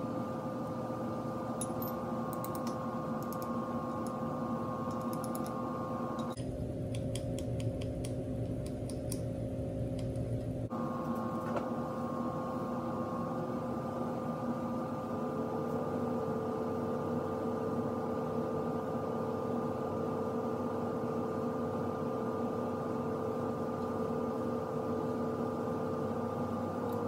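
Light clicks and taps of small steel parts being handled and fitted into a lathe tailstock, over a steady background hum that carries several held tones.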